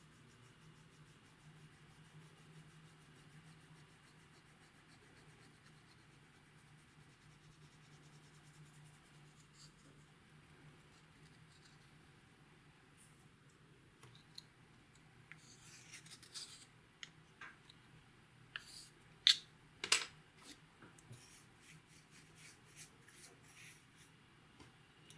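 Faint steady hum, then from a little past halfway a run of sharp clicks and crackles from slime and makeup being worked by hand, loudest about three-quarters of the way through.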